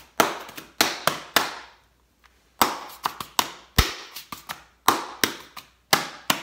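A flat pink object slapped rhythmically against the palm of the hand in place of a tambourine, tapping out a tambourine beat: sharp slaps about three a second, with a pause of about a second early on before the pattern starts again.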